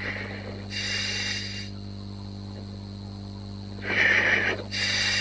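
A diver breathes through underwater breathing gear, making hissing bursts about a second long: one near a second in and two close together near the end. Under the breaths runs a steady electrical hum.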